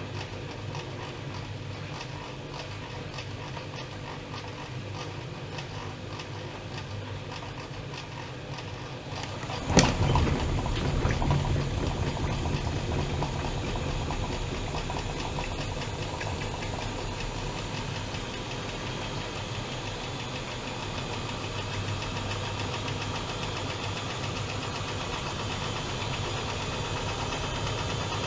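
Privileg Dynamic 7420 washing machine running with a steady hum. About ten seconds in a sharp click, then the motor runs louder, with a whine that slowly rises in pitch.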